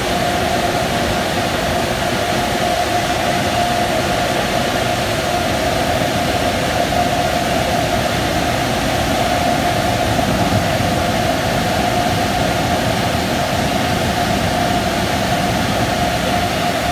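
PDQ Max Air car wash dryer blowers running, a loud, steady rush of air with a constant whine from the fans.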